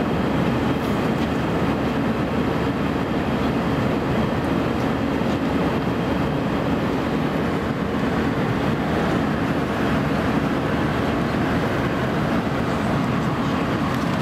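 Airbus A319 passenger cabin noise in flight: the steady rush of air and engine drone with a low hum, unchanging throughout.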